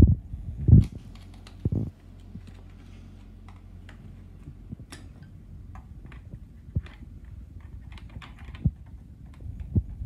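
Hand tools working metal parts at the axle end of a stroller's front wheel hub, prying off the metal locking washer: a few heavy knocks in the first two seconds, then many light, irregular metal clicks and ticks.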